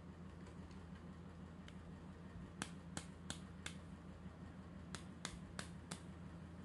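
Sharp plastic clicks from a pink toy doctor-set instrument worked by hand: two runs of four clicks, about three a second, a little over a second apart, with a few faint clicks before them.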